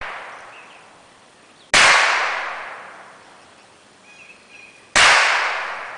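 .22 rifle shots: two sharp reports about three seconds apart, each echoing and dying away over a second or two, with the fading echo of an earlier shot at the start.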